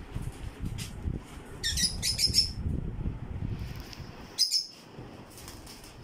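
Lovebirds giving shrill, high chirps: a quick run of calls about two seconds in and another short one about four and a half seconds in, over a low rumble.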